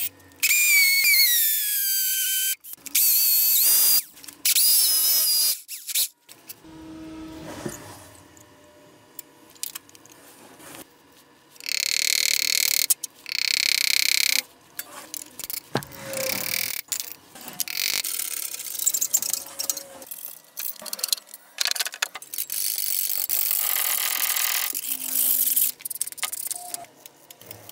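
A series of workshop tool sounds: a cordless drill's motor whining and falling in pitch as it winds down, then several short loud bursts of power-tool noise and a longer burst, with metal parts knocking and scraping in between.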